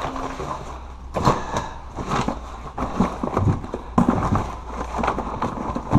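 Cardboard, papers and loose junk in a cardboard box rustling, scraping and knocking as the box is handled and tipped into a bin, with several irregular sharp knocks.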